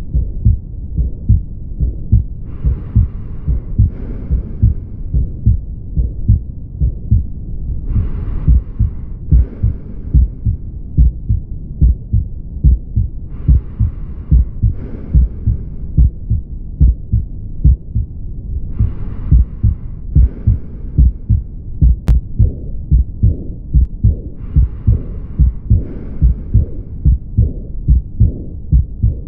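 Recorded heart sounds with a murmur: a steady run of low heartbeats, with a soft hiss coming twice about every five or six seconds. These are the teaching examples of aortic valve disease, aortic stenosis and then aortic regurgitation near the end.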